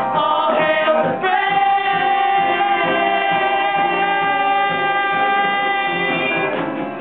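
Stage musical cast singing together, holding one long final note from about a second in that fades near the end.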